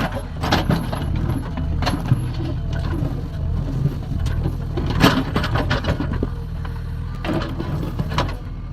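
JCB 3DX backhoe loader's diesel engine running steadily, with scattered knocks and clanks from digging. The loudest clank comes about five seconds in.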